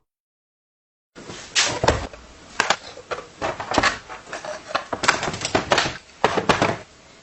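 Total silence for about a second, then a busy run of irregular knocks, clacks and short scraping noises: hard parts and tools being handled and worked on a bench.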